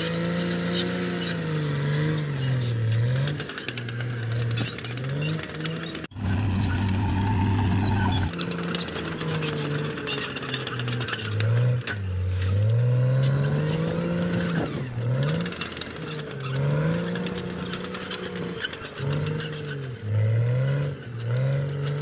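CAT D6R XL bulldozer's diesel engine working under load. Its pitch repeatedly sags and climbs back as the blade digs in and lets off.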